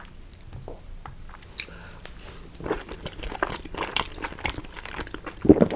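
Close-miked chewing of a mouthful of chips with melted cheese and beans: a run of short, wet mouth clicks, sparse for the first two seconds or so, then busier, with one louder sound near the end.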